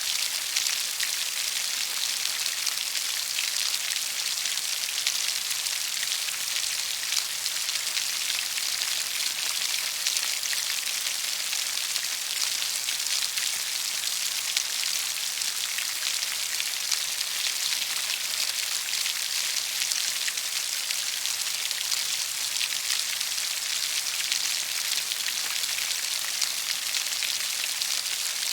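Steady rainfall: a dense, even patter of raindrops hitting a surface, mostly high-pitched hiss with countless small drop ticks.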